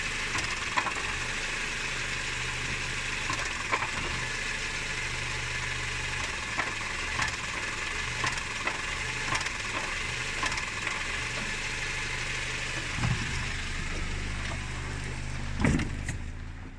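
Car engine idling, with irregular knocks from the manual gearbox when the clutch pedal is pressed, which the owner takes for a gearbox fault. A louder knock comes near the end.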